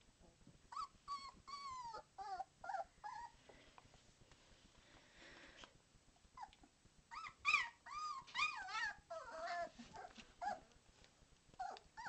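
Three-week-old White Swiss Shepherd puppies whining in high, wavering calls: a run of calls about a second in, a pause, then a louder run about seven seconds in and one more call near the end.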